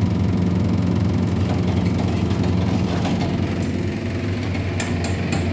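A steady low machine hum with even, unchanging pitch, with a few sharp clicks near the end.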